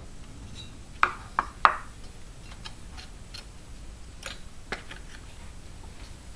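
A run of sharp clicks and light knocks, as of small hard objects being handled: three louder ones close together about a second in, then fainter scattered clicks.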